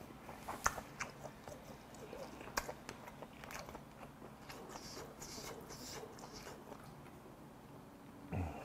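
Close-miked chewing and wet mouth sounds of a man eating braised pork back ribs with kimchi, with scattered sharp clicks, two of them stronger in the first three seconds. A short low vocal sound comes near the end.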